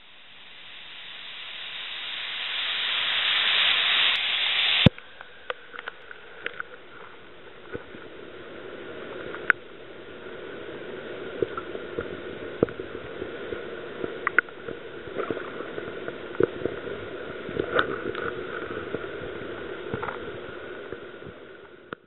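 Waterfall rushing, growing louder over the first few seconds, then cut off by a sharp click. It is followed by a muffled underwater recording of moving water with scattered sharp clicks and ticks.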